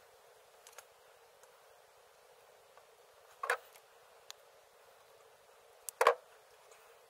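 Small clicks and handling sounds of a wire stripper/crimper and plastic wiring connectors being worked by hand, with two louder clacks about three and a half and six seconds in.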